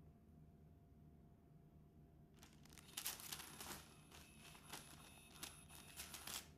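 Crinkling and rustling of a cat toy's fabric cover as a cat paws and pushes at it, starting about two and a half seconds in and lasting some four seconds, a run of quick crackles and clicks. Before that only a faint steady hum.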